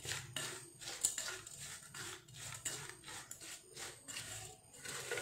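Spoon stirring a damp mix of flattened rice, grated coconut and sugar in a stainless steel bowl: quiet, irregular scrapes and light taps against the bowl.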